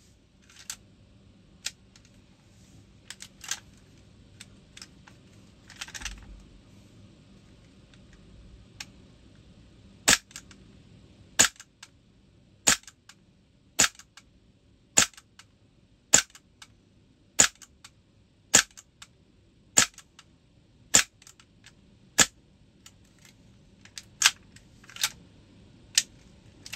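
MGC G19 Gen2 model pistol being dry-fired to test its repaired trigger part: a sharp metallic click at each trigger pull, about a dozen in a steady rhythm roughly every 1.2 seconds, after a few lighter handling clicks in the first several seconds.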